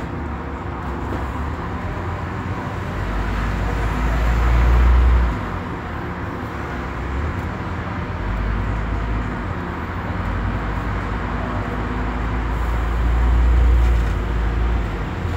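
Scania Omnidekka double-decker bus running, heard from the upper deck while it moves in slow traffic: a steady low engine rumble and road noise that grows louder twice, about four and thirteen seconds in, as the bus pulls forward, easing off between.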